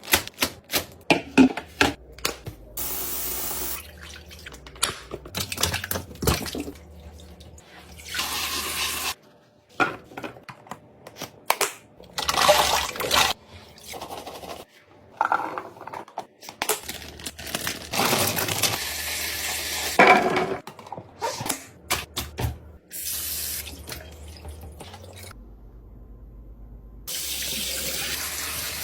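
Kitchen restocking sounds: containers and items clicking and knocking as they are handled and set down, broken by stretches of running or pouring water.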